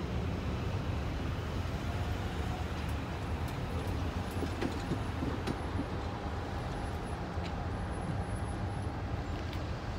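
Road vehicles driving over a railroad grade crossing, a van among them, with a steady low rumble.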